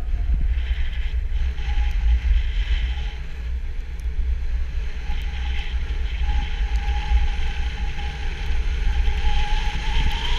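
Wind buffeting the microphone of a moving action camera as a steady low rumble, with a hiss of sliding over packed snow on a downhill run.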